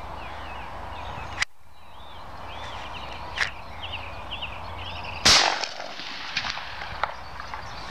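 A single shotgun shot about five seconds in, a sudden sharp blast with a short tail. Before it there are birds chirping and a sharp click.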